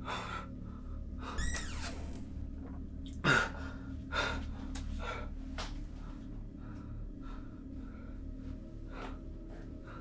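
A man breathing hard with several sharp gasps, the loudest about three seconds in, over a low steady hum.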